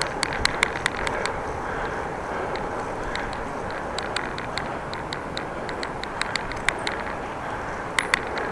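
Bicycle on the move: a steady rush of wind and tyre noise, with frequent short clicks and rattles from the bike.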